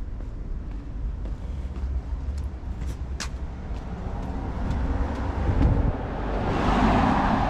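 A car passing on the road, its noise swelling to the loudest point near the end, over a steady low rumble. A few scattered footsteps on stone steps in the first half.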